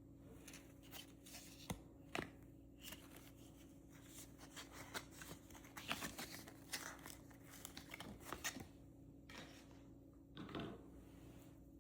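Faint handling noises: scattered small clicks and rustles of pencils and packaging being handled by hand, more frequent in the middle, over a faint steady hum.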